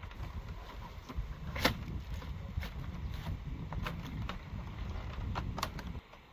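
Flattened split-bamboo floor slats clicking and creaking as a hand presses on them: a few sharp, separate clicks over a low rumble that stops abruptly near the end.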